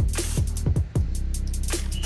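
Background electronic music with a steady beat: deep kick drums that drop in pitch and quick hi-hat ticks over a bass line.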